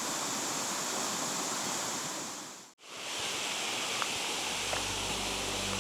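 Steady rush of spring water flowing out of a cave. It drops out briefly about three seconds in and comes back, and a low steady hum joins near the end.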